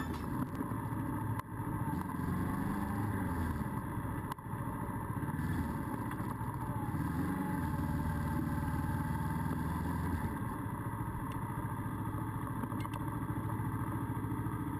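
Motorcycle engine running at low speed through town, its pitch rising and falling twice as the throttle is opened and closed, then holding a steady low run as the bike rolls slowly into a parking spot.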